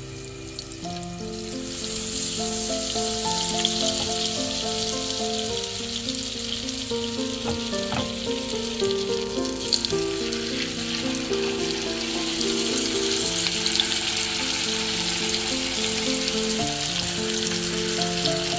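Butter and oil sizzling in a nonstick frying pan with garlic cloves, growing louder about two seconds in as the butter foams. Raw chicken thighs are laid into the hot fat and fry in it.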